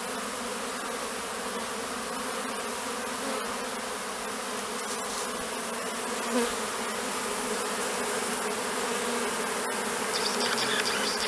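A swarm of honeybees buzzing, a steady drone.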